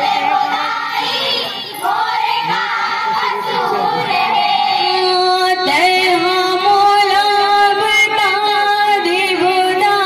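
Girls' voices singing a Chhattisgarhi Panthi folk song with musical accompaniment, the melody bending and held on long notes.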